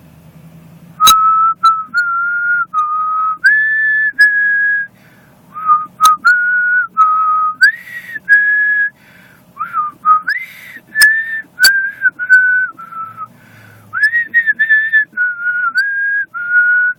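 A woman whistling a melody: a series of separate held notes at different pitches, stepping up and down, starting about a second in.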